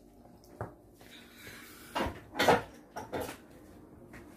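A few sharp knocks and clatters: a single one just over half a second in, then a cluster from about two to three and a half seconds in, the loudest about two and a half seconds in.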